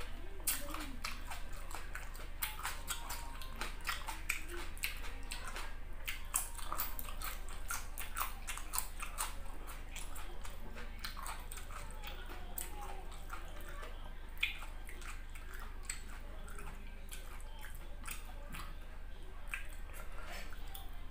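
Close-miked mukbang chewing: a person chewing a mouthful of squid and rice, with many short smacking clicks from the mouth over a steady low hum.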